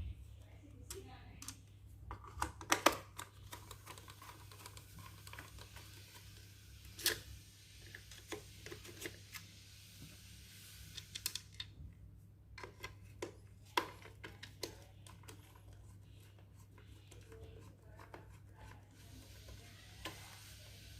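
Scattered clicks, taps and scrapes of hands and small tools working on a toy's plastic casing and parts, over a steady low hum.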